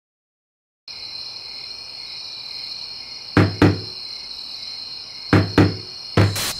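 Crickets chirping steadily from about a second in, with hollow knocks of a hand striking the wooden cabinet of an old television set: two quick knocks, another two about two seconds later, and more starting near the end.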